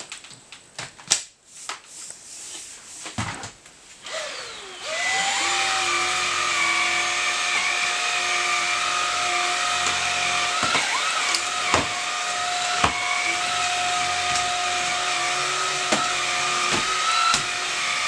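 A few clicks and knocks as plastic attachments are fitted, then about five seconds in the Xiaomi Dreame XR cordless stick vacuum switches on and runs with a steady whine, its motorised floor-brush head running as it is pushed across the floor. A few short knocks come through the running sound.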